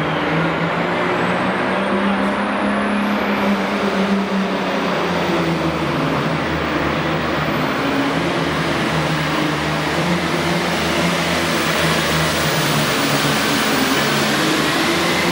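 John Deere Super Farm class pulling tractor's turbocharged diesel engine running flat out as it drags the weight-transfer sled down the dirt track: a loud, steady drone. A thin high whistle rises over the first few seconds.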